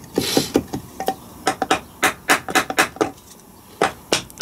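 Hammer tapping repeatedly on a stuck retainer on an LT230 transfer box casing: a run of sharp metallic taps, about three a second with short pauses, to knock the retainer free.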